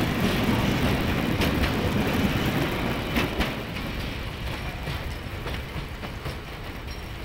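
A Class 56 diesel locomotive's Ruston-Paxman 16-cylinder engine rumbling as its train moves away, the sound fading steadily. A few sharp clicks come from the wheels over the rails.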